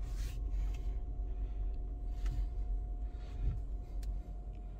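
Steady low rumble inside a car's cabin, with a faint steady hum and a few light scattered taps.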